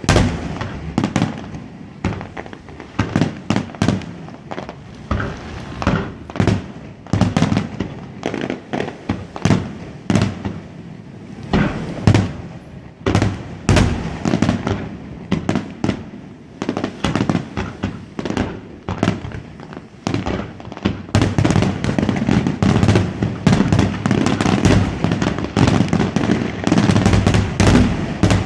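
Fireworks going off in quick succession, a string of sharp bangs and crackles that grows denser and nearly continuous toward the end.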